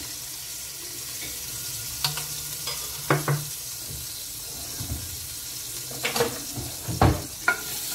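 Minced garlic sizzling in hot oil and rendered meat fat in a stainless steel pot, with a few short clinks and knocks of utensils through it.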